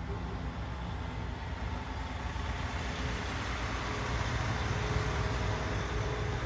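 A truck's diesel engine idling, a steady low rumble that grows slightly louder.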